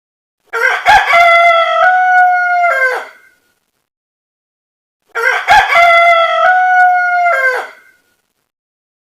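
A rooster crowing twice, the same cock-a-doodle-doo heard again about four and a half seconds later, with silence between. Each crow lasts nearly three seconds: a short rising start, a long held call that steps up in pitch, and a falling end.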